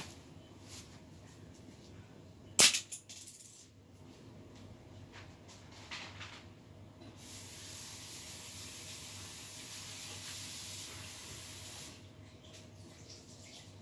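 Household cleaning sounds in a small room: one sharp knock about two and a half seconds in, then a steady hiss lasting about five seconds.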